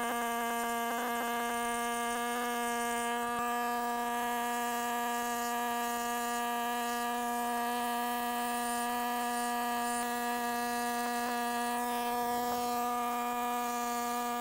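Air-driven Wasp concrete engraving tool running at a steady, high-pitched whine while engraving into concrete.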